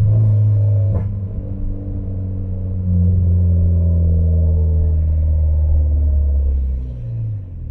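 Mitsubishi Lancer Evolution X's turbocharged 2.0 L four-cylinder through a straight-pipe exhaust while driving, heard from inside the car: a low drone that swells at the start and eases off. It grows louder again from about three seconds in, holds, then drops away near the end. There is a single sharp click about a second in.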